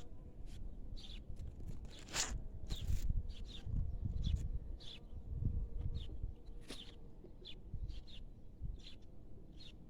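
Small birds chirping: short, high calls repeated about once or twice a second, over a low rumble of wind on the microphone.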